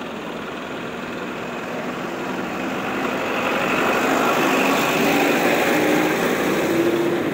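A Tata goods truck driving past close by, its engine growing louder as it nears, peaking about two thirds of the way in and easing off near the end, with its engine note rising slightly as it passes.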